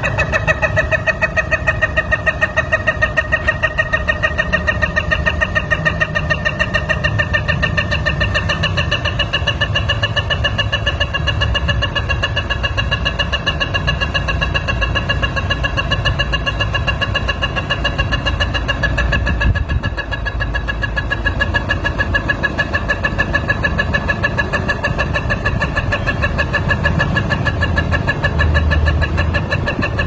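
Car engine being cranked by its starter motor over and over without catching: a steady whine pulsing in a fast even rhythm over a low rumble.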